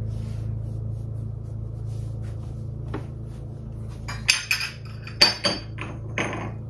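Ceramic espresso cups and saucers clinking against each other: a cluster of sharp, ringing clinks starting about four seconds in, over a steady low hum.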